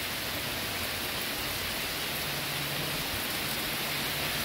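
Heavy rain pouring down steadily in a thunderstorm: a dense, even hiss of the downpour on the ground, pavement and foliage.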